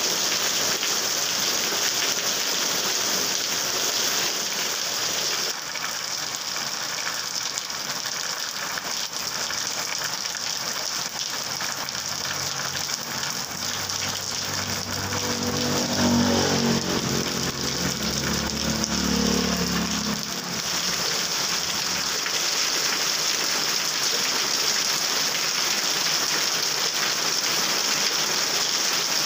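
Heavy rain falling steadily on a wet road and its puddles, an even hiss. About halfway through, a vehicle engine comes up under the rain, rising and falling in pitch for several seconds before fading.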